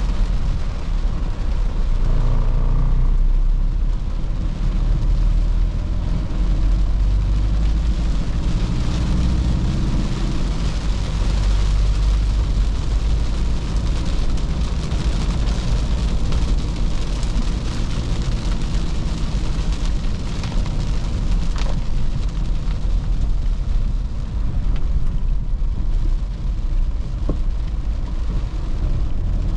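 Toyota Fortuner's 3.0 L D4D four-cylinder turbodiesel running under way, a steady low rumble whose pitch shifts up and down during the first several seconds, with constant tyre and road hiss from a wet road.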